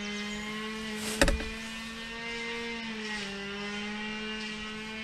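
A steady engine drone with a clear pitch, which dips slightly about three seconds in. A single sharp knock sounds about a second in.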